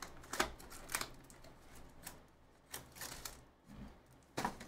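Plastic shrink wrap being torn off a sealed hobby box of baseball cards and the cardboard box opened and handled: a series of sharp crackles and taps, the loudest about half a second in and another near the end.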